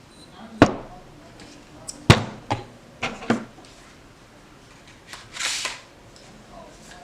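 Sharp clicks and knocks of gun parts being handled while a pistol brace is fitted onto an AR buffer tube: about five, two of them close together about two seconds in. A short hiss follows a little after five seconds.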